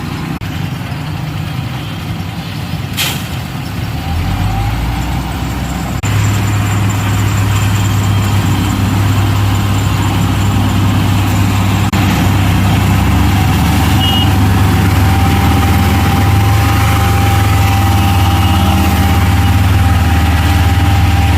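Heavy engine of road-construction machinery running steadily, getting louder about six seconds in, with a single sharp click about three seconds in.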